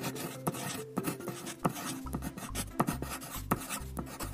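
Pencil scratching on paper in short, quick strokes, a writing sound effect. Soft background music runs underneath, and a low pulsing bass comes in about two seconds in.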